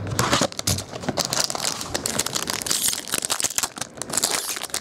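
Plastic shrink-wrap crinkling and cardboard scraping and rustling as a trading card box is cut open and its contents pulled out, a dense run of short irregular rustles.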